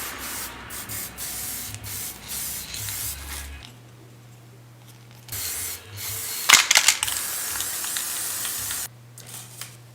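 Spray paint hissing: several short bursts, a pause, then one longer spray of about three and a half seconds, with a few sharp clicks partway through.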